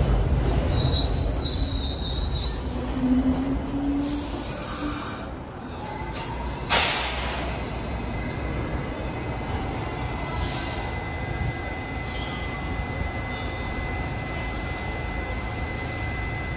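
New York City subway train slowing beside an elevated platform: a low rumble that fades and a high wheel squeal during the first four seconds, then a sudden hiss about seven seconds in as it stands. A steady high whine runs on from the standing train after that.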